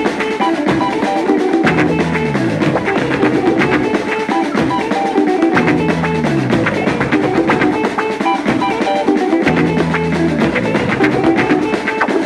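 Instrumental passage of a song between sung lines: electric guitar, bass and drums, with a falling bass figure that repeats about every four seconds over a steady drum beat.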